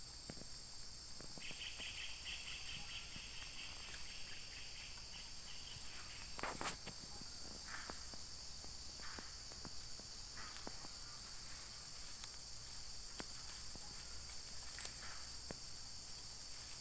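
A steady, high-pitched drone of forest insects, joined early on by a quick run of repeated chirps for a few seconds. A few brief sharp clicks or snaps stand out, the loudest about seven seconds in.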